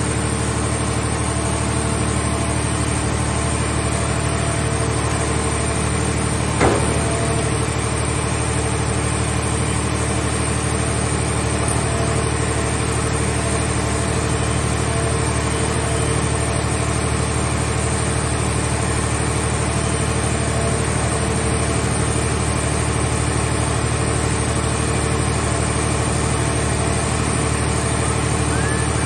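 Engine and hydraulic power unit of heavy scrap-handling machinery running steadily while a grapple loads a scrap car shell into a car baler, with one sharp clunk about seven seconds in.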